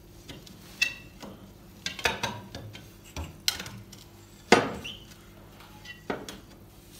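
About six scattered clinks and knocks, some with a brief ring, the loudest a little past halfway, from handling a cast-iron stove's glass door and cleaning tools while the glass is being cleaned.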